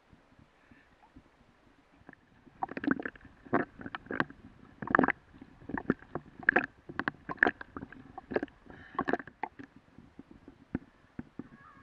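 River water splashing and gurgling against a waterproof action camera held at the surface. It starts about two and a half seconds in as irregular, loud splashes about two a second, and eases off near the end.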